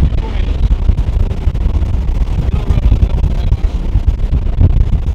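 Strong wind buffeting the microphone: a loud, irregular low rumble that rises and falls in gusts.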